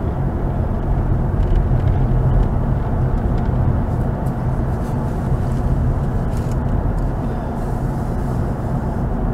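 Steady low rumble of a car driving along a paved road, heard inside the cabin: engine and tyre noise.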